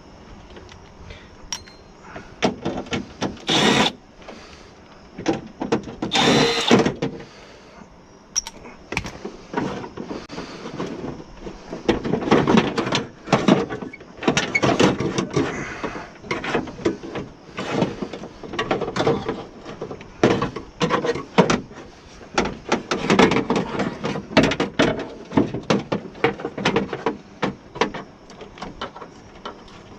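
Tool work on a car door's window regulator: irregular metallic clanks, clicks and rattles throughout, with two short, louder bursts a few seconds in.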